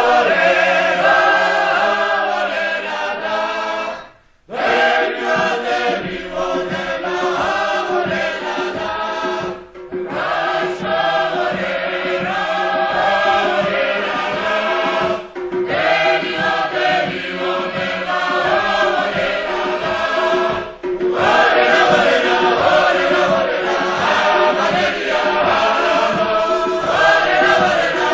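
Choir singing in several voices over a steady held low note, in long phrases with a brief break about every five and a half seconds.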